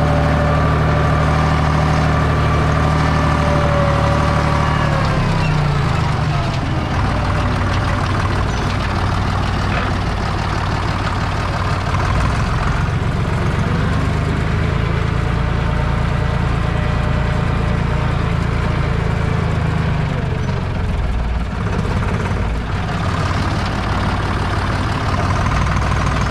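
Deutz 5206 tractor's three-cylinder air-cooled diesel engine, heard from inside the cab, working steadily; its pitch drops about five seconds in as the engine speed falls, then holds, and shifts again near the end.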